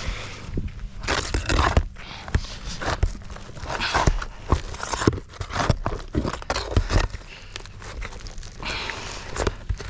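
Asphalt roof shingles being worked loose by hand: irregular scraping, crackling and tearing as a shingle stuck down by its tar strip is lifted, with scattered knocks.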